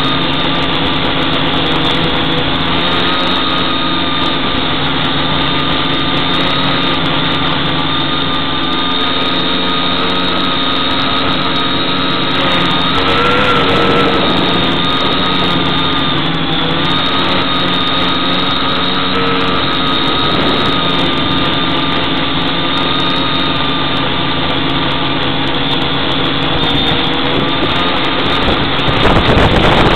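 Quadcopter's brushless electric motors and propellers whining steadily, heard from a camera mounted on the craft. The pitch wavers briefly about halfway through as the throttle shifts, and a rougher rushing noise joins in near the end.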